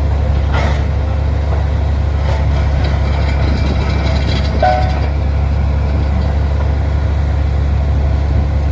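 Heavy diesel engine and air compressor of a truck-mounted borewell drilling rig running at a steady, loud, deep drone.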